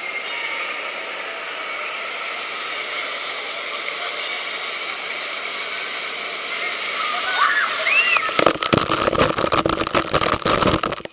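A 1,000-gallon tipping water bucket dumping its load: steady rushing water at first, a few high squeals about seven seconds in, then from a little past eight seconds a heavy deluge pounds down right onto the microphone for nearly three seconds.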